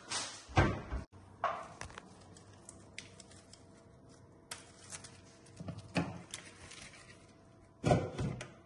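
Handling noises from drink cans and greenery being arranged on a tray over plastic sheeting: scattered light knocks and clicks of the aluminium cans, with crinkling of the plastic.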